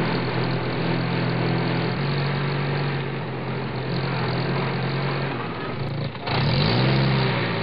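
Truck engine idling with a steady low hum. About six seconds in it breaks off abruptly, then returns with a brief rise and fall in pitch like a short rev.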